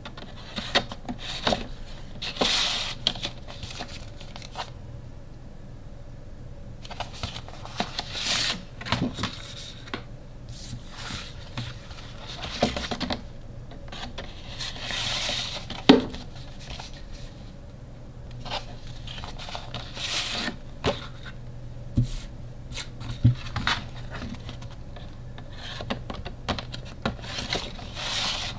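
Glossy photo prints and a cardboard photo frame being handled: paper sliding and rustling against card, with light taps on the table and one sharper knock about halfway through.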